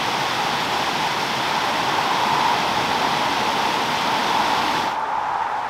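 Water of the Painswick Stream pouring over a small stone weir into a pool: a steady loud rush. Near the end the rush becomes quieter and duller.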